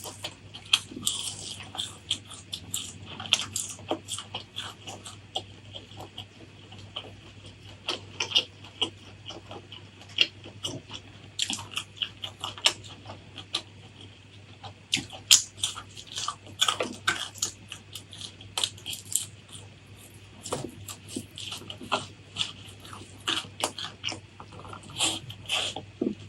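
Close-miked eating: a person chewing and crunching crisp food, with frequent irregular sharp crunches and wet mouth sounds between them.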